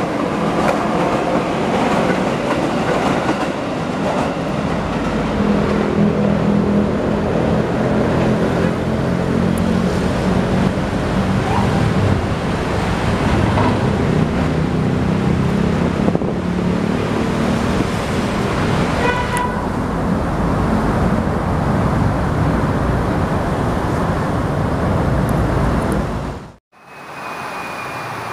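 A KRL Commuter Line JR 205 series electric train running past close by, with steady wheel and motor rumble and a short horn toot about two-thirds of the way through. The sound cuts off abruptly near the end, giving way to a steady hiss of rain.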